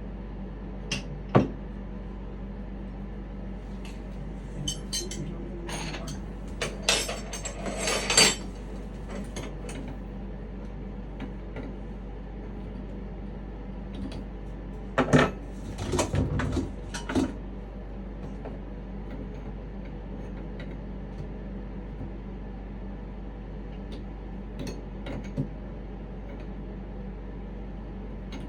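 Scattered clinks, knocks and rattles of tools and plumbing fittings being handled while a sink nut is snugged down. They come in a few clusters: a sharp knock about a second in, a busy stretch around six to eight seconds in, and another around fifteen to seventeen seconds in, over a steady low hum.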